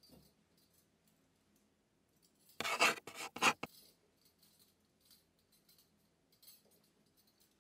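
A short scraping noise of three or four quick strokes about two and a half seconds in, with faint clinks and ticks around it.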